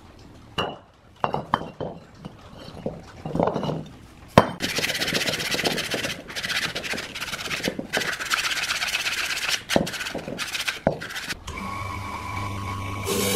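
A few metal clinks and knocks as heavy metal housing parts are handled and set down. Then abrasive paper rubs hard over a metal bearing housing for several seconds, with a few short breaks between strokes. Near the end an electric motor with a wire wheel spins freely with a steady hum.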